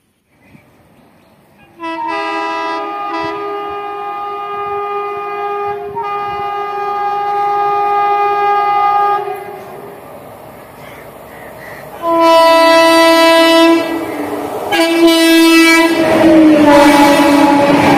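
Indian Railways train horn: one long chord-like blast of about seven seconds, then after a lull two shorter blasts. Near the end the train passes close with a loud rumble of wheels, and a last horn blast drops in pitch as it goes by.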